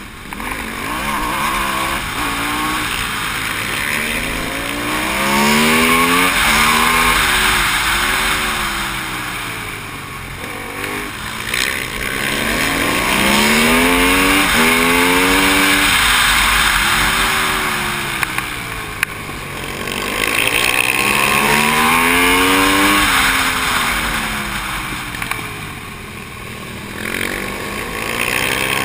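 Onboard sound of a racing Aprilia SXV supermoto's V-twin engine revving hard. Its pitch climbs in steps through the gear changes, then drops away on braking for the corners, several times over. Heavy wind rush on the microphone runs underneath.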